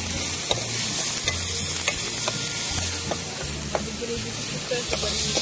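Onion-tomato gravy sizzling in a metal kadai while a steel ladle stirs it, the ladle scraping and tapping against the pan several times.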